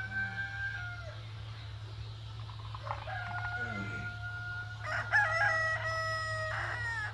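Kadaknath roosters crowing, long drawn-out crows one after another: one trails off about a second in, another starts around three seconds, and a third with a stepped pitch follows at about five seconds.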